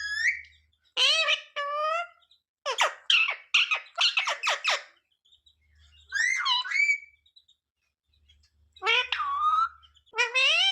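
Ringneck parrot calling and chattering in about six short bursts of bending, squawky notes, some of them speech-like, with brief pauses between.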